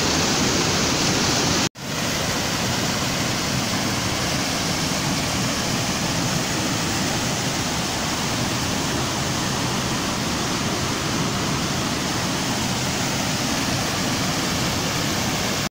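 Rushing water of a rocky mountain stream tumbling over boulders in small cascades: a steady, loud rush. It cuts out for an instant about two seconds in.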